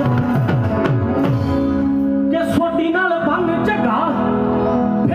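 Live Punjabi music played loud through a stage sound system: a male singer over held instrumental notes, gliding low notes and a few hand-drum strokes.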